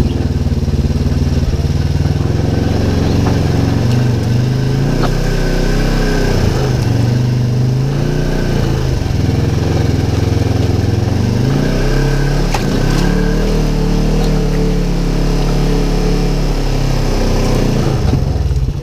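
Polaris RZR XP 1000 side-by-side's twin-cylinder engine running, heard from inside the open cab, its speed rising and falling repeatedly as the throttle is worked. A few sharp knocks come through over it.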